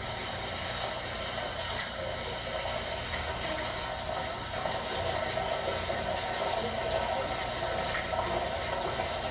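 Waterfall inside a cave: a steady rush of falling water.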